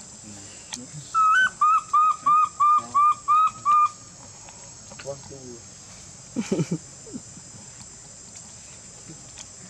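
A run of about nine short, whistle-like animal calls, each rising then dropping, about three a second, starting about a second in and lasting some three seconds. A steady high drone of insects runs underneath, and a brief low call comes a few seconds later.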